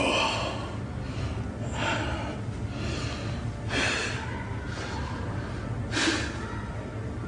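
A man breathing hard, with four forceful, hissing exhalations about two seconds apart over a steady low hum.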